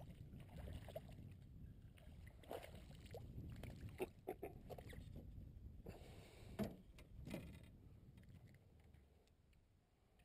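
Faint knocks and taps against the canoe as a just-caught crappie is handled in the boat, the two sharpest about four and six and a half seconds in, over a faint low rumble.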